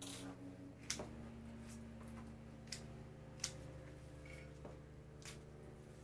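Red-handled floral snips cutting carnation stems: a handful of sharp, separate clicks, about one a second, over a steady low hum.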